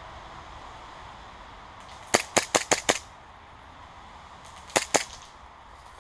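Airsoft gun firing: a quick string of five sharp shots about two seconds in, then two more shots close together about two seconds later.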